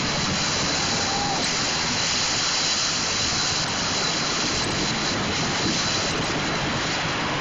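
Homemade ATV-powered paddle boat under way: a steady, loud rush of churned and splashing water with the ATV engine running underneath.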